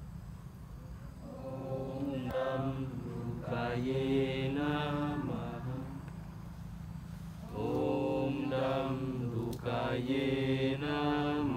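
A voice chanting a mantra in slow, drawn-out sung phrases, four of them with short pauses between, over a steady low drone.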